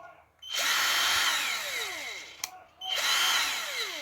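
Philco PPF03 12 V cordless drill-driver run twice with no load, each run about two seconds and each starting with a sharp click. The motor whine falls in pitch as it winds down after each release of the trigger.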